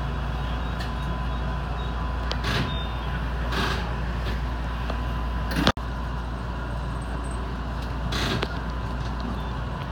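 Electric commuter train running, heard from inside at the front of the car: a steady rumble of wheels and motors with a faint constant whine, a few short swells of noise, and one sharp click about halfway through.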